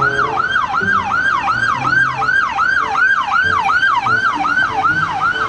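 Toy police car's electronic siren wailing in quick repeating downward sweeps, about three a second.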